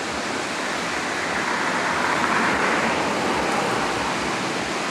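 Steady rushing noise of traffic on a busy road bridge mixed with the river weir's falling water, swelling about two seconds in.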